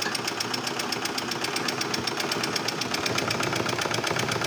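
Treadle sewing machine running steadily under foot pedaling, its mechanism clattering in a fast, even rhythm.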